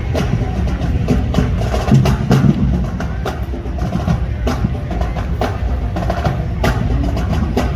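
Live band music driven by drums, with frequent sharp percussion hits over a heavy low-end rumble.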